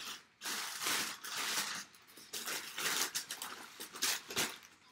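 Brown kraft packing paper crumpling and rustling in several irregular bursts as hands dig through it and pull it out of a cardboard box.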